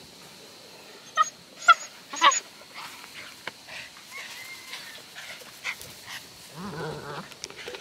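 Eight-week-old Dutch Shepherd puppy giving three short, high-pitched barks in quick succession about a second in.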